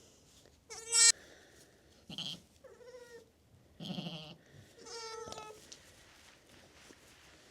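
Sheep bleating: about five short, high-pitched bleats spread over several seconds.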